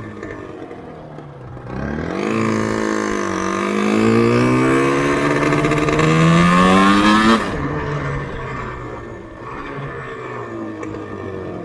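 Yamaha RZV500R's two-stroke V4 engine accelerating: the revs climb, dip briefly at a gear change, then rise steadily to a peak. About two-thirds of the way through, the throttle shuts off abruptly and the engine drops back to a lower, steadier note.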